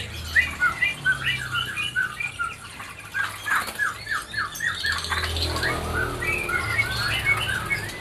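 Caged songbirds chirping and squawking in short, varied calls, including a quick run of about six repeated notes midway, over a faint low hum.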